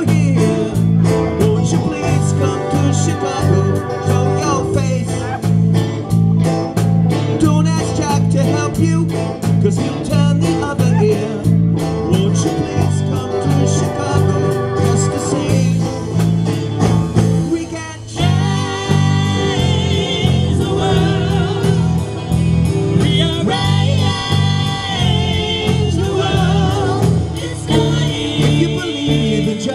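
Live band playing a song with a steady drum beat, bass guitar, electric guitars and keyboard, with a singer's voice over it.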